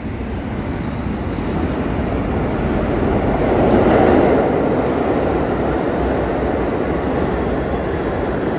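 New York City subway train running through the IRT Seventh Avenue line station, its noise swelling to a peak about four seconds in and then slowly easing off.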